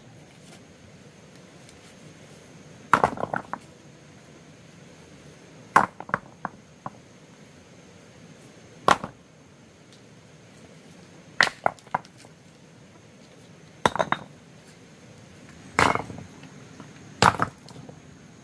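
A series of about seven sharp knocks, one every two to three seconds, some followed by a couple of quick lighter clicks, like hard objects being struck or set down.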